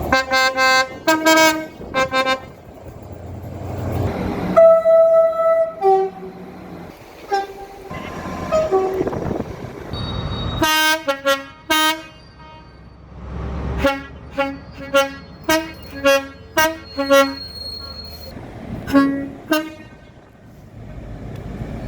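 Train horn sounded in many short toots. There is a quick run of toots at the start, one longer blast about four and a half seconds in, and another fast series of short toots from about fourteen to twenty seconds.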